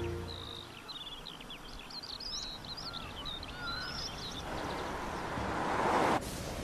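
Birds chirping and twittering in many quick short calls, as the tail of background music dies away at the start. From about four and a half seconds a rushing noise builds up and stops abruptly about six seconds in.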